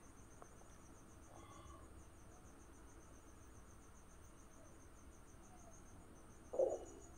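Faint, rapid high-pitched chirping of crickets, with one short louder sound about six and a half seconds in.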